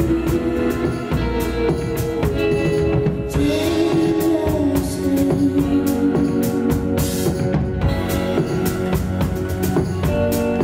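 Live band music: a drum kit under sustained keyboard and guitar chords, with a steady beat.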